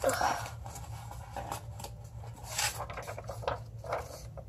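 A sheet of drawing paper being handled and lifted: scattered soft rustles and scrapes, with a sharper one right at the start and a longer rustle around the middle, over a low steady hum.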